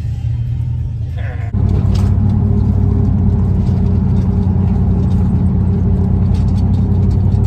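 Low, steady rumble of a vehicle heard from inside its cabin, which steps up in loudness about a second and a half in and then holds steady.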